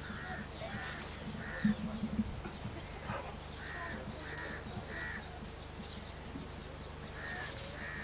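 A bird calling repeatedly in short harsh calls, grouped in threes about half a second apart, with a pause between groups. A steady low hum runs underneath.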